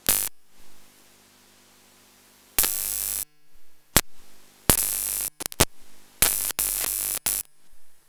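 Several loud bursts of harsh static that cut in and out abruptly, the longest well under a second, over a faint steady hum.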